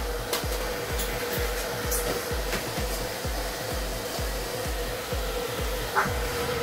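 Handheld hair dryer running steadily on medium-to-high heat: an even rush of blown air with a constant motor hum. Background music with a steady low beat plays underneath.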